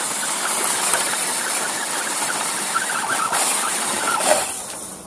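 Axial Honcho RC rock crawler's electric motor and geared drivetrain whirring under load as the truck climbs over a boulder, heard up close. It fades out near the end.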